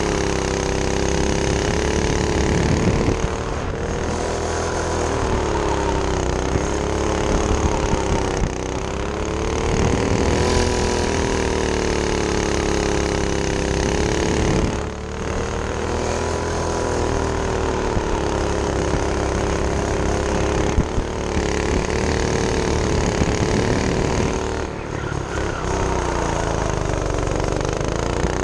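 Go-kart's Predator engine running hard while being driven, its pitch rising and falling with the throttle. The revs drop briefly about five times as the throttle is lifted, then climb again.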